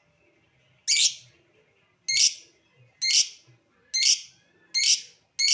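Lovebird giving loud, shrill calls, one about every second, each a short harsh burst.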